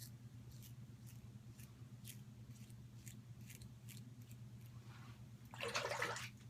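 Merkur Futur safety razor with a Personna Platinum blade scraping through lathered stubble in a run of short, scratchy strokes, then a louder, longer rasp about five and a half seconds in.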